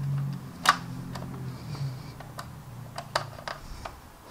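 Light clicks and taps of hard plastic as a hand presses and settles a masked clear canopy onto a plastic model jet's fuselage, the sharpest click about a second in and a few more near the end, over a faint low hum.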